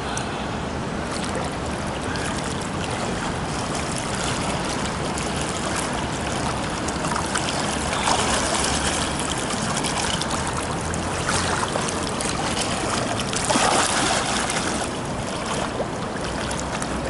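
Pool water splashing and sloshing from a swimmer doing breaststroke kicks and pulls, picked up at the water's surface, with louder splashes about eight seconds in and again near fourteen seconds.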